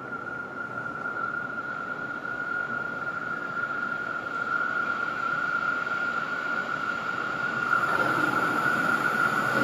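Siemens SD160 electric light-rail train approaching, its rolling rumble steadily growing louder, with a steady high-pitched whine throughout. About eight seconds in the noise fills out and gets louder as the train draws near.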